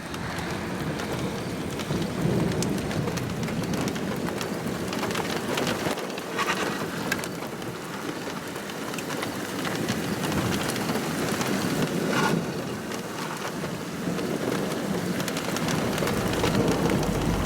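Heavy rain falling as a steady hiss, with a few brief louder moments. A low rumble comes in near the end.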